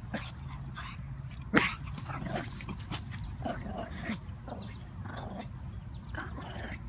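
Shih Tzu making short yips and grunts as it runs, with one sharper, louder bark about a second and a half in, over steady low background noise.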